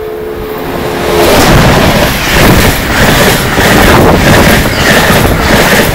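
An Amtrak train's Nathan K5LA horn is touched lightly for about a second, sounding only two steady notes. Then the train passes at speed: a loud rush of wheel-on-rail noise with a regular clatter, building from about a second in and staying loud.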